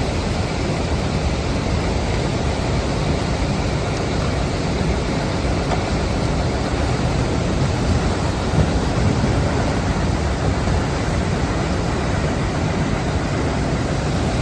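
River in flood rushing through a lock, a loud, steady rush of water.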